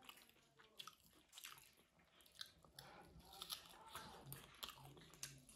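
Faint close-up mouth sounds of a man eating rice and buffalo curry with his hand: chewing, wet smacks and small clicks.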